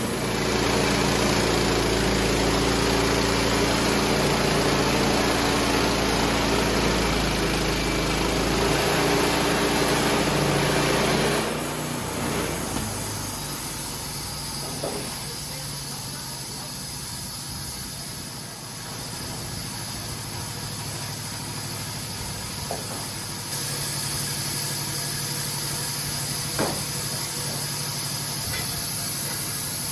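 An engine idling steadily, then stopping about eleven seconds in. A steady hiss follows, with a few light knocks.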